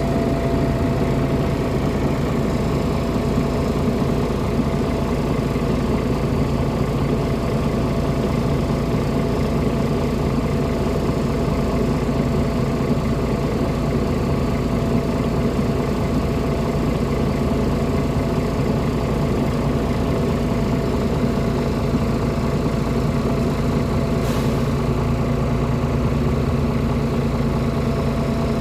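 An engine running steadily, a constant low drone with a steady tone that never rises or falls. One short click about 24 seconds in.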